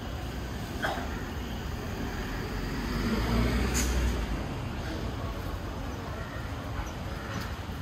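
Street ambience with traffic noise, swelling as a vehicle passes about three to four seconds in, with a couple of short clicks.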